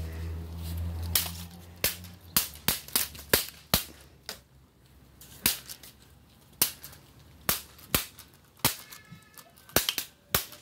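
Plastic toy sword blades striking each other in a play sword fight: a string of irregular sharp cracks, a dozen or more. A low hum stops about two seconds in.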